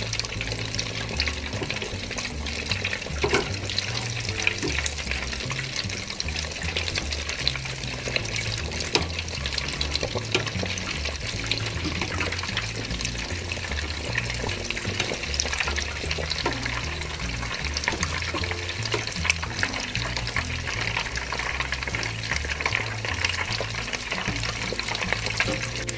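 Breaded potato croquettes deep-frying in a pot of hot oil: a dense, steady crackle and sizzle full of small pops. A wire skimmer is being moved through the oil.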